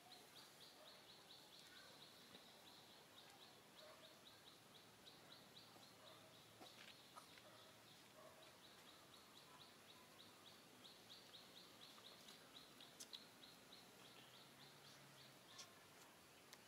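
Near silence: faint outdoor background with a rapid, even chirping of about five pulses a second and a few soft clicks.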